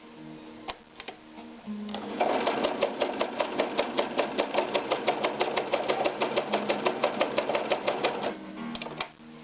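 Ideal 601 sewing machine running for about six seconds, starting about two seconds in, with an even rapid clatter of about eight stitches a second, over music from a radio.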